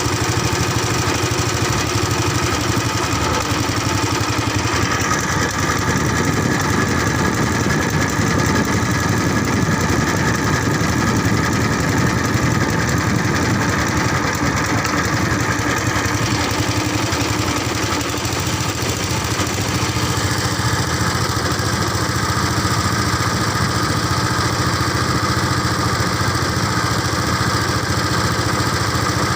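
An engine running steadily at an even speed, a constant drone with no breaks.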